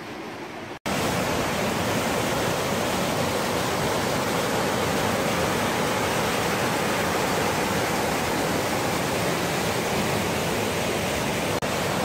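Mountain stream rushing down rapids over rock slabs: a steady, even rush of white water that comes in abruptly about a second in, after a quieter hiss.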